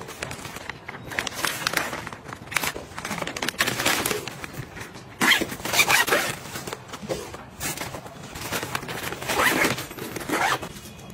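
Irregular rustling and scraping of fabric as a cloth pouch and a packing cube are unfolded and handled, loudest about five to six and a half seconds in.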